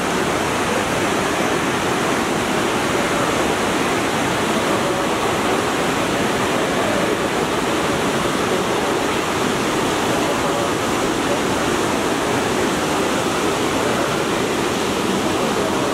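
Fast mountain river, the Parvati, rushing over rocks in white-water rapids: a steady, unbroken rush of water.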